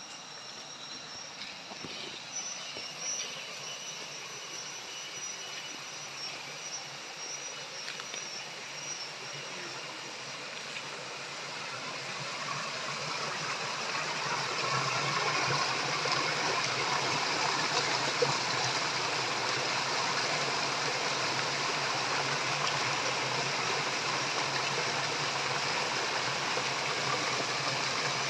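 A steady rushing noise, like running water or hissing, that swells between about twelve and fifteen seconds in and then holds level.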